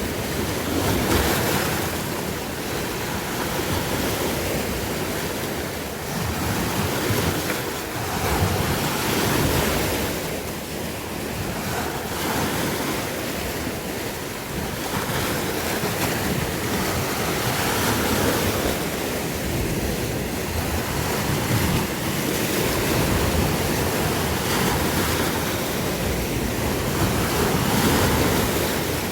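Sea waves breaking and washing on the shore, a continuous surf that swells and ebbs every few seconds, with wind buffeting the microphone.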